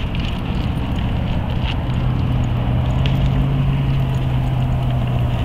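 Car engine idling with a steady hum that strengthens slightly about two seconds in, with light scattered ticks over it.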